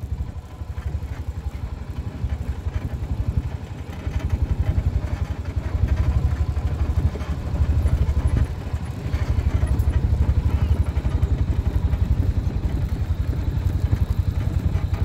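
Off-road utility vehicle's engine running with a rapid low throb as it rolls down a steep, rocky dirt track. It swells louder a few seconds in.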